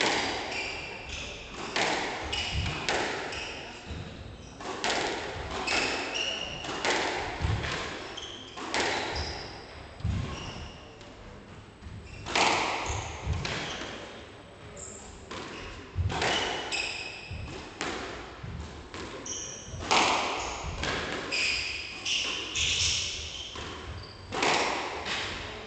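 Squash rally: the ball's repeated sharp smacks off rackets and the court walls come at an uneven pace. Short high squeaks of shoes on the wooden floor run between the hits.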